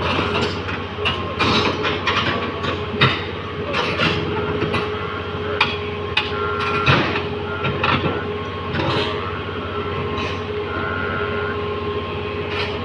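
A heavy machine running with a steady hum, over irregular, sharp metal clanks and knocks.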